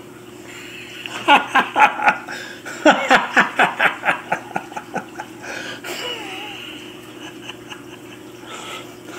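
A person laughing in two runs of quick, rhythmic 'ha' pulses, the first short, the second longer and fading out by about five seconds, over a steady low hum.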